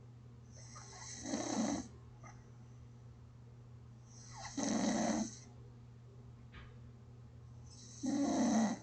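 A person gently snoring, three snores about three and a half seconds apart, over a faint steady low hum.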